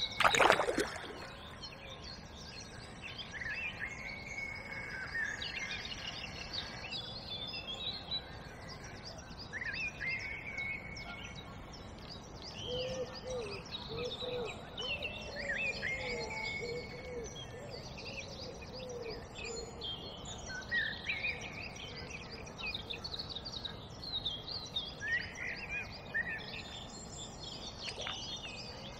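Several songbirds singing and calling at once, with many short chirps and whistles overlapping throughout. A short loud noise comes about half a second in, and a lower call repeats several times around the middle.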